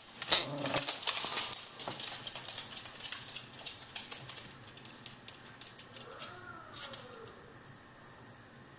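Dogs growling and scuffling over a rubber toy football for about the first two seconds, with sharp clicks mixed in. About six seconds in comes a short, faint whine that rises and falls twice.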